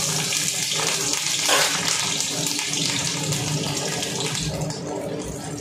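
Green chillies and a dried red chilli sizzling in hot oil in a kadai, a steady hiss that eases a little near the end.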